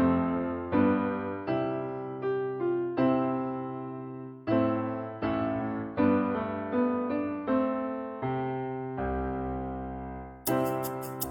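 Background music: slow struck chords, each fading before the next, with a fast high ticking beat joining near the end.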